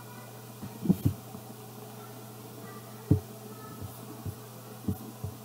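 Background noise: a steady low hum with about six dull, irregular thumps, the loudest about a second in and about three seconds in.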